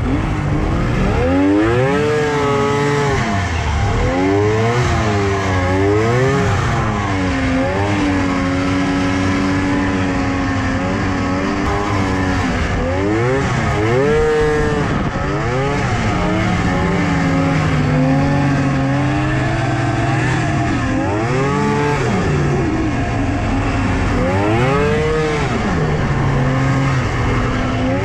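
Polaris Indy XLT 600 triple snowmobile's three-cylinder two-stroke engine running under way, its pitch rising and falling again and again as the throttle is worked, with a few steadier stretches between.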